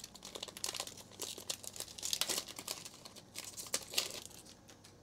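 Foil wrapper of a Panini Prizm football card pack crinkling as it is torn open and the cards are pulled out, a dense run of crackles that dies away near the end.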